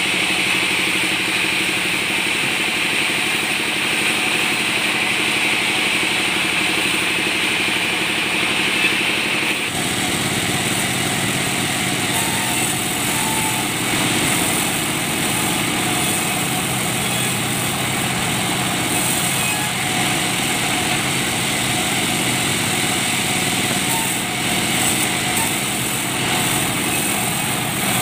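Sawmill saw machinery running steadily while balsa logs are worked, with an abrupt shift in the sound about ten seconds in.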